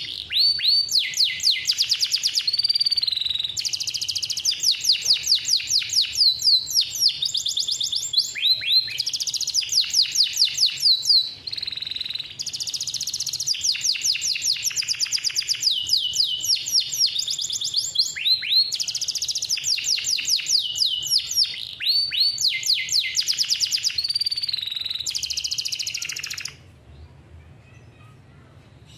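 Male domestic canary singing a long, unbroken song of fast rolls and trills, high-pitched, changing phrase every second or two; it stops near the end.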